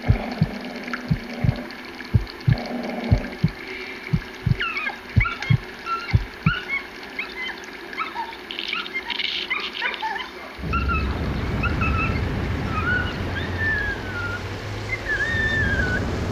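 Low, evenly spaced thumps like a heartbeat, about two a second, fading out after about six seconds, with birds chirping from about four seconds in. About eleven seconds in a low rumble sets in under the continuing bird calls, with a slow rising low tone near the end.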